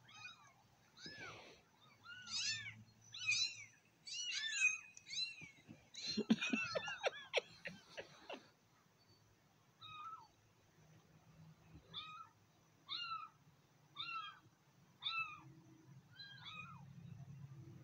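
Kittens mewing: a string of short, high mews that rise and fall, coming thick and fast in the middle and then about one a second near the end. A box fan hums low and steadily underneath.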